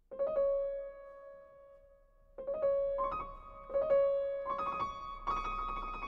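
Solo piano played slowly: a note struck at the start and left to ring, then further notes and chords entering about two and a half seconds in, coming closer together and growing fuller.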